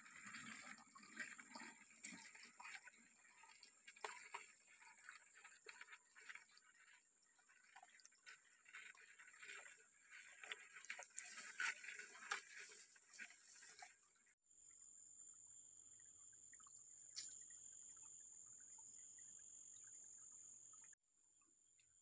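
Faint trickle of shallow stream water over rocks, with small irregular splashes and clicks, under a steady high-pitched tone. About fourteen seconds in it cuts to a faint steady hiss carrying the same tone, with one sharp click.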